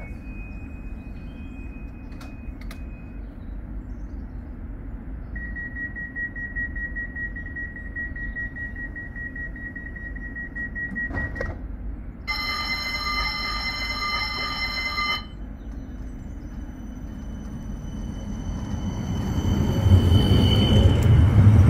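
Steady low rumble of a West Midlands Metro tram with an electronic warning tone: a thin steady tone for about six seconds, then a louder, richer tone about three seconds long that cuts off suddenly. Near the end the rumble swells and grows much louder.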